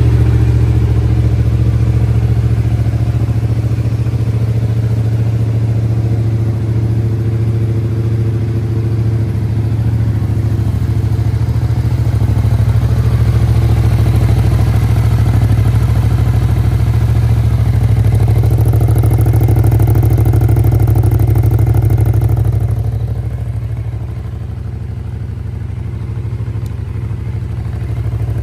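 Yamaha YZF-R7's parallel-twin engine idling steadily through an aftermarket Yoshimura silencer, just after being started. The level dips a little near the end.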